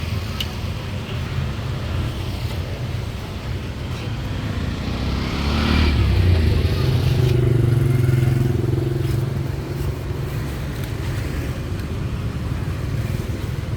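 Street noise with a motor vehicle passing close by: the engine hum swells about five seconds in, holds for a few seconds, then fades back into the steady traffic rumble.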